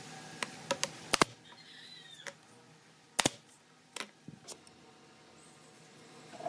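Loose wooden slats knocking and clacking against each other and the wooden frame as they are set into place by hand: a scatter of short, sharp wooden clicks, the loudest pair about a second in and another about three seconds in.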